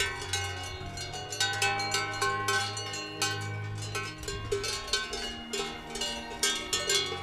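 Cowbells worn by grazing cattle, many bells clanking irregularly and ringing at several different pitches at once.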